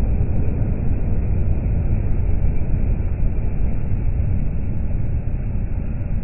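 MAN articulated lorry with a curtainside trailer passing close: a steady low rumble of engine and tyres, easing slightly about five seconds in.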